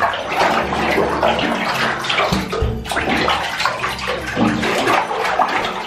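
Bathwater mixed with Slime Baff powder being stirred and splashed by hand in a bathtub, a loud, continuous, irregular sloshing.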